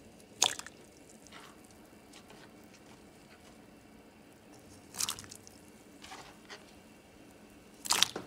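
Sweet potato sticks dropped by hand into a pot of hot water, splashing three times, about half a second in, five seconds in and, loudest, near the end, with a few softer splashes between.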